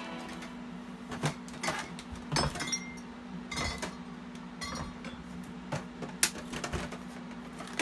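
Scattered light clinks and knocks, like hard household items being handled, over a steady low hum.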